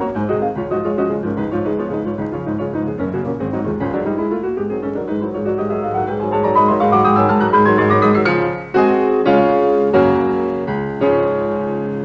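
Background piano music: a rising run of notes, then four struck chords near the end, the last one left to fade.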